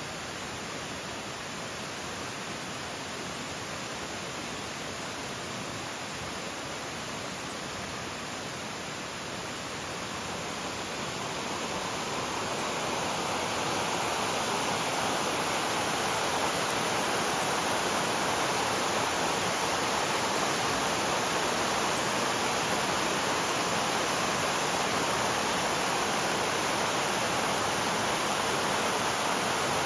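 Shallow rocky river rushing over stones in small rapids, a steady water noise that grows louder about ten seconds in and then holds.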